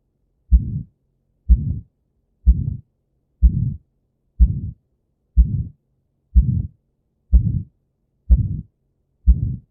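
Stethoscope recording of an aortic stenosis murmur: steady heartbeats about once a second, each a sharp low thud followed by a short rough tail, ten beats in all.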